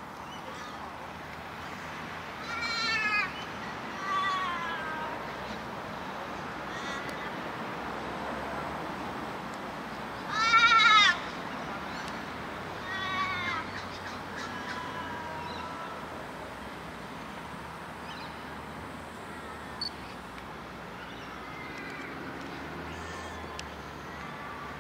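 A string of loud, drawn-out bleat-like animal calls, each wavering and falling in pitch at its end; the loudest comes about ten seconds in, with fainter calls after it. A faint low rumble runs underneath.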